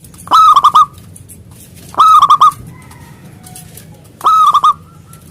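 Zebra dove (perkutut) cooing its song three times, about every two seconds: each phrase is a short high coo that rises and falls and ends in a quick run of clipped notes.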